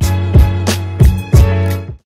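Intro music with a strong bass line and a steady beat of about three hits a second, cutting off suddenly at the end.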